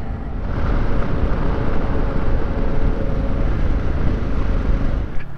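Adventure motorcycle on the move: wind rushing over the microphone, with the engine running faintly underneath. The rush grows louder about half a second in and eases off near the end.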